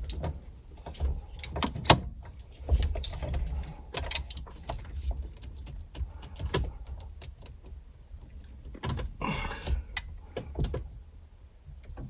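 Hand tools tightening the steering-wheel bolt on a Porsche 911 steering column: an irregular run of metal clicks and knocks, with a longer rasping stretch about nine seconds in.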